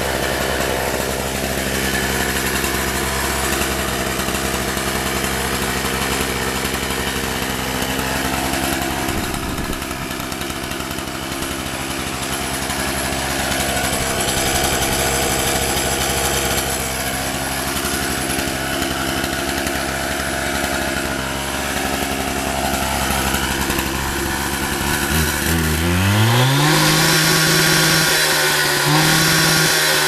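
Two-stroke gas-powered concrete cut-off saw idling steadily, then revved up about 25 seconds in and held at a higher speed, with a brief dip near the end.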